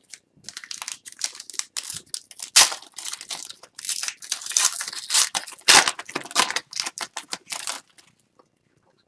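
An Upper Deck Series 1 hockey card pack's wrapper being torn open by hand, crinkling and tearing in many quick crackles. The crackling stops about a second before the end.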